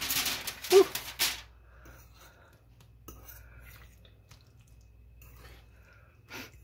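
Aluminium foil crinkling for about the first second and a half as the cover is pushed aside, then a spoon stirring quietly through the casserole sauce in a glass baking dish, with a few light clicks of the spoon against the glass.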